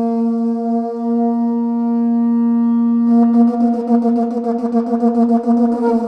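Music track opening with one long blown horn note, like a conch shell, held at a steady pitch. A fast pulsing rhythm joins about three seconds in.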